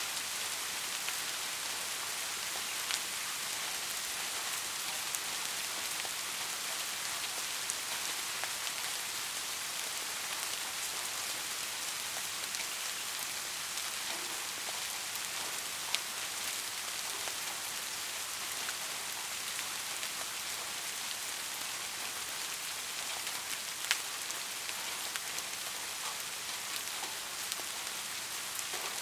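Steady rainfall: an even hiss of rain with individual drops ticking through it, and a few louder single drop hits.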